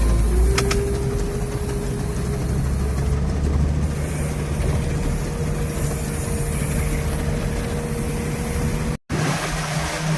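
Engine and drivetrain of a Veter all-terrain vehicle running steadily under way, with a high whine that creeps slightly upward. The sound cuts out for a moment near the end.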